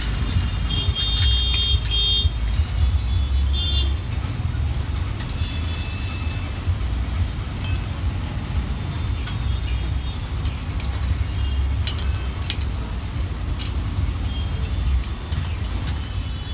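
Street traffic rumble, steady and low, with scattered light clicks and a few short high-pitched tones over it.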